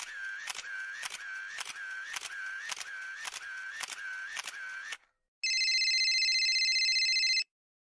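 Edited-in electronic sound effects: about ten rhythmic clicks, roughly two a second, each with a short tone, then a steady electronic buzzing tone for about two seconds that cuts off abruptly.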